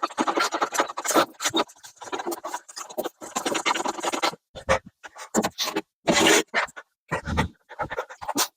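Irregular scraping and rustling, in bursts of different lengths broken by short gaps: handling noise of someone moving about and handling things.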